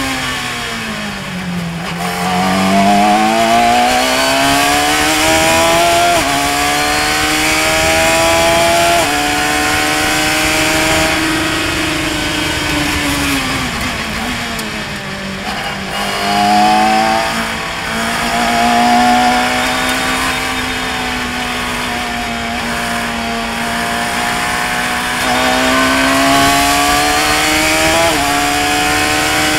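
Radical SR3 RSX's 1500 cc motorcycle-derived four-cylinder engine at high revs on track. Its pitch sinks twice under braking, about a second in and again around fifteen seconds in. Each time it climbs back under acceleration, stepping at the gear changes.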